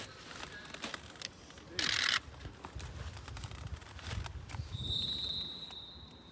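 Camera gear being handled, with scattered clicks and a brief loud rustle about two seconds in. A long, steady blast of a referee's whistle follows near the end.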